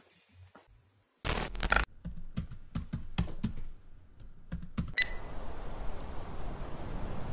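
Computer keyboard typing: a quick, irregular run of key clicks, opened by a short loud burst about a second in. About five seconds in, the clicks stop and a steady low rumble sets in.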